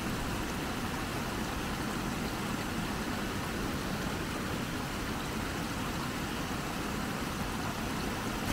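Rain-swollen creek in flood, water rushing and cascading over rocks in a steady, unbroken rush.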